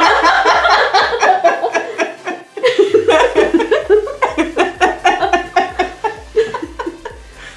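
Women laughing hard in long, rapid runs of laughter, breaking off briefly about two and a half seconds in, then laughing again.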